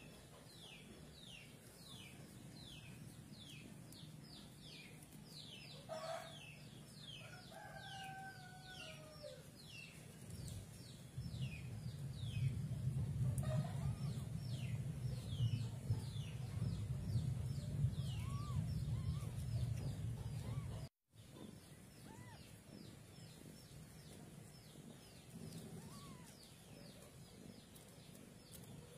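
Birds peeping rapidly, two to three short falling chirps a second, with a few faint kitten mews. A louder low rumble comes in about halfway and runs for some ten seconds.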